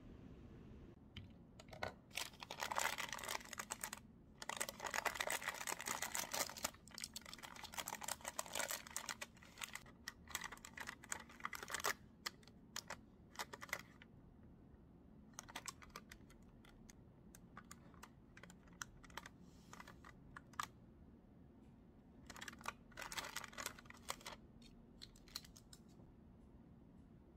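Thin clear plastic wrapper of a packaged macaron crinkling and crackling as it is handled and opened, in several spells with short pauses between.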